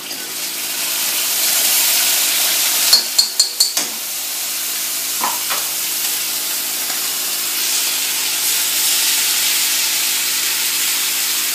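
Garlic, ginger and ají colorado sizzling in hot oil in a deep frying pan as they are stirred, the sizzle building over the first couple of seconds. About three seconds in come five quick, sharp taps.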